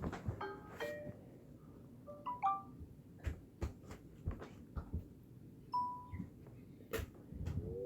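Samsung Galaxy J7 Prime notification tones: short chimes of a few notes each, played one after another with pauses of a few seconds, and a single held beep near six seconds. Sharp clicks fall between the tones, the loudest shortly before the end.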